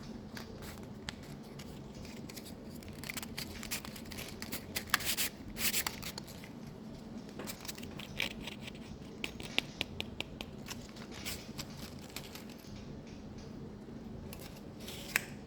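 Crackling-fire sound from a noise machine: irregular small crackles and clicks over a steady hiss, with a cluster of louder, scratchier clicks about five to six seconds in.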